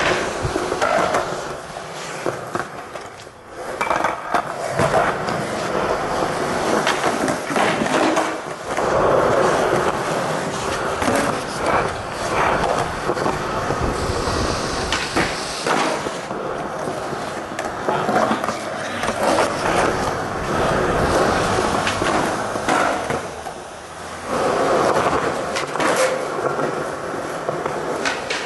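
Skateboard tricks on concrete: urethane wheels rolling with a steady rumble, broken by sharp wooden clacks of tail pops and board landings, and scraping as the board slides on a rail and ledge. The rolling fades briefly a few times between clips.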